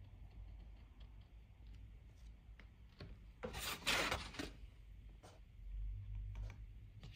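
Hand and dip pen moving over rough cold press watercolor paper: faint light scratches and ticks, with a louder rasping rub lasting about a second near the middle.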